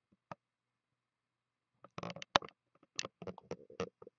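Sharp clicks and taps of a trading card and its packaging being handled. There is a single click shortly in, then a quick cluster of clicks and taps over the last two seconds.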